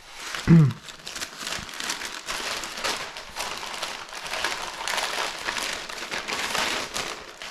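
Plastic packaging crinkling and rustling in irregular crackles as a cable package is handled and opened.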